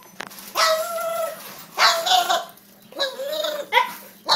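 Pug making a string of weird, drawn-out whining yelps, about four calls each under a second long, excited at feeding time.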